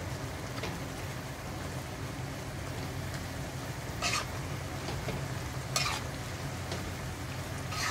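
Pechay stems and chayote sizzling in a wok as a spatula stirs them, with three short scrapes of the spatula against the pan.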